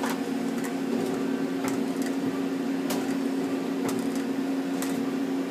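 Nakamura-Tome TMC15 CNC lathe powered up and idling between moves: a steady low machine hum, with a handful of faint ticks about a second apart.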